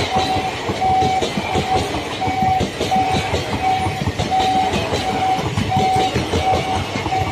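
Passenger coaches of an express train passing at speed, the wheels clattering and rumbling over the rail joints. Through it runs a short beep repeating about every half-second.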